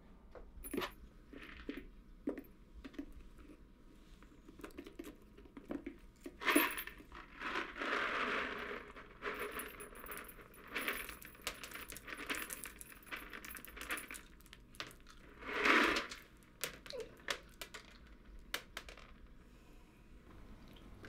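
Dried beans rattling and clattering inside a homemade cardboard box as it is shaken and tipped, beans spilling out, with the little bell from a cat's collar jingling. The rattling comes in louder bursts about six and a half seconds in and again near sixteen seconds.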